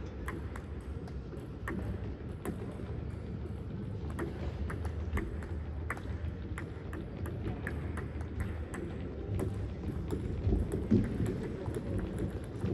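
Players' footsteps and ball hits during a match: irregular sharp taps and knocks over a steady low rumble, with one louder knock near the end.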